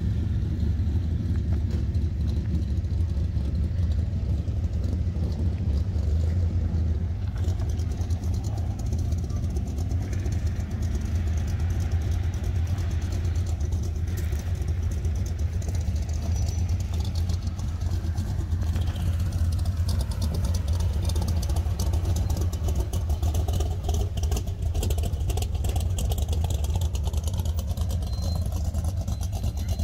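A vehicle engine drones steadily at a low pitch, with a pickup truck rolling slowly past on the gravel lane near the end.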